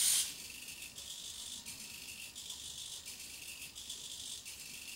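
Rapiro robot's arm servo motors whirring in short repeated bursts, a little more than one a second, as the robot waves its hand back and forth, after a louder whirr right at the start.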